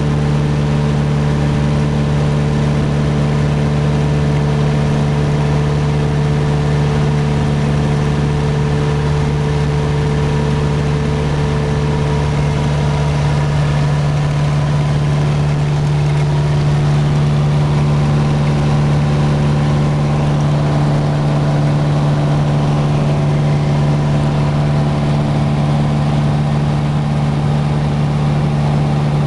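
A light aircraft's engine and propeller droning steadily in level cruise, heard inside the cockpit. The drone holds one low, unchanging pitch with higher tones above it, over a constant rush of air.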